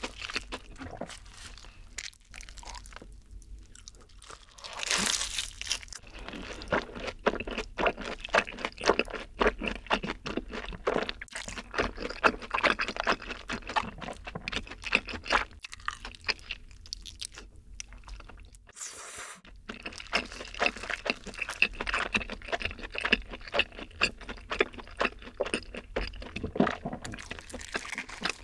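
Crunching and chewing of a long breaded cheese stick, many crisp crunches in quick, irregular succession, with a brief louder rustle about five seconds in.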